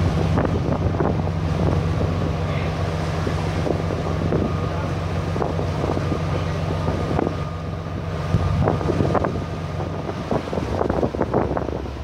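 A ferry's engines run with a steady low drone under strong wind buffeting the microphone. The drone weakens about ten seconds in, while the gusts become stronger and more frequent.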